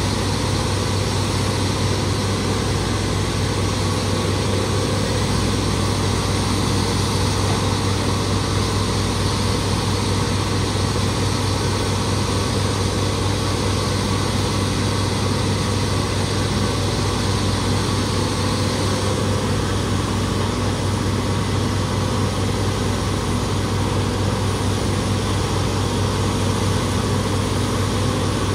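Diesel engine of a 2004 Morbark 1300A tub grinder running steadily at a constant speed, with a strong low hum under the engine noise.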